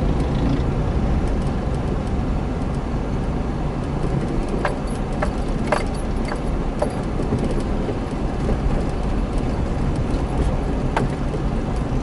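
Car driving slowly on a rough city street, heard from inside the cabin: a steady low engine and road rumble, with a few short clicks or rattles in the middle and once near the end.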